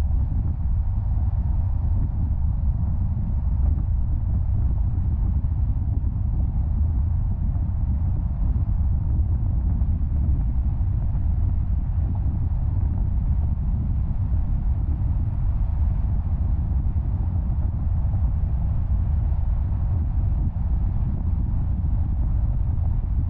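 Steady low rumble of a car driving along a paved road: road and tyre noise with the engine underneath, unchanging throughout.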